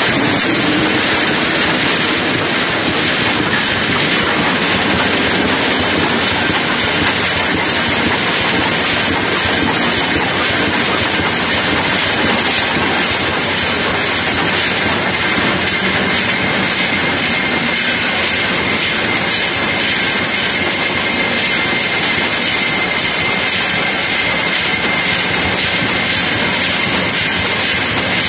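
JAGER GD6 wire-mesh welding line running: a loud, steady machine noise with hiss and a few faint steady high tones over it.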